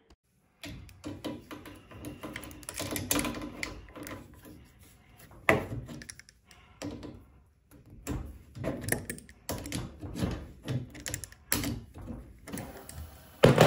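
Irregular metallic clicks and knocks of an adjustable spanner fitting onto and turning a brass radiator drain-off valve, opening it to drain the central heating system. A sharper, louder knock comes near the end.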